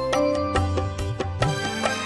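Instrumental introduction of a Punjabi song, without singing: held melody notes over a steady drum beat.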